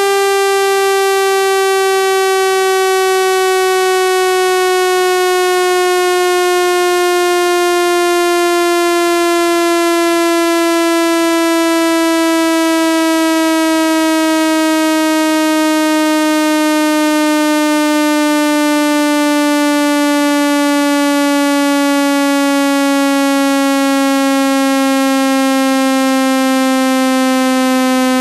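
Synthesized buzzy tone played to shake water out of a phone speaker, one loud steady pitch sliding slowly downward.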